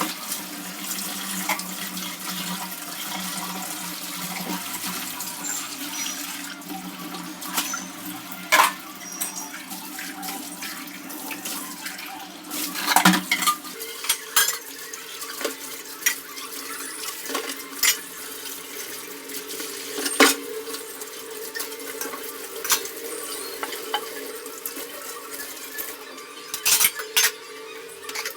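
Water running from a kitchen tap into a sink while dishes and utensils clink and knock against each other as they are washed. The sound of the running water changes about halfway through.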